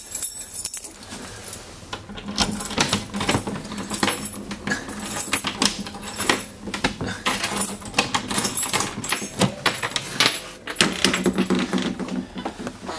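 A bunch of keys jangling and a key clicking and rattling in the lock of a boat's wooden cabin door, with many sharp clicks and knocks as the door is worked open.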